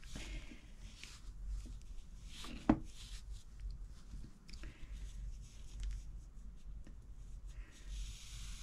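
Soft rustling and rubbing of hands and yarn as a darning needle draws the yarn through a knitted hat to cinch its top closed, with one sharp tap a little over two and a half seconds in.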